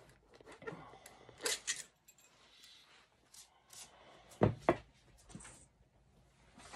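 A hand staple gun being reloaded and handled: a few sharp metal clicks about a second and a half in, then two heavier knocks a little after four seconds as the gun comes down on the wooden board.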